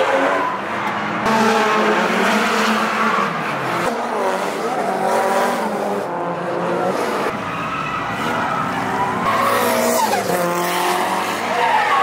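Drift cars' engines revving hard, rising and falling through a corner, over loud tyre squeal. The sound changes abruptly a few times as it jumps between passes.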